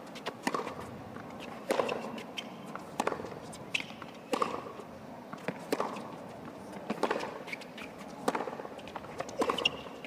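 Tennis rally on a hard court: the ball is struck by rackets about every second and a quarter, the two players alternating, with the ball's bounces heard in between.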